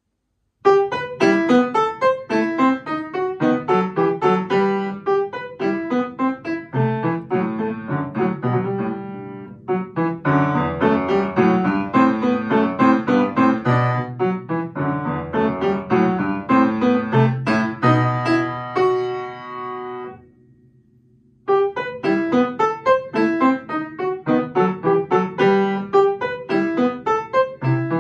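Upright piano played by hand: a lively piece of short, separate notes and chords. About two-thirds of the way through, a chord is held and dies away into a pause of about a second before the playing starts again.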